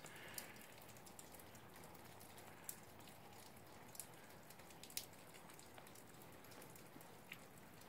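Near silence: faint outdoor hiss with a few scattered, faint sharp ticks.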